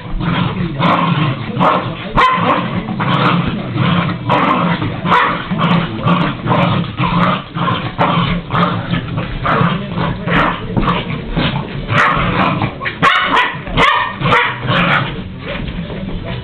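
Jack Russell terrier barking in play, short barks about two or three a second throughout, over a steady low hum.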